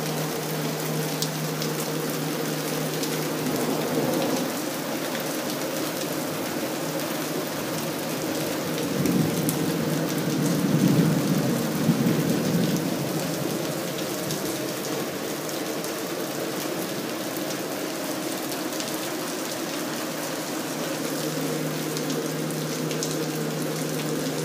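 Heavy monsoon rain pouring down steadily. A long roll of thunder swells up about nine seconds in and fades away after about four seconds.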